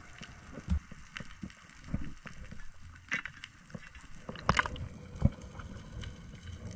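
Underwater sound picked up through a GoPro housing as a freediver swims up: a low wash of moving water with scattered clicks and knocks, the loudest a little after four and a half and five seconds in.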